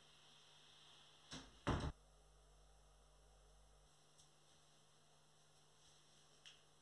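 Near silence with a faint steady hum, broken about a second and a half in by two short knocks close together, the second louder; a faint tick near the end.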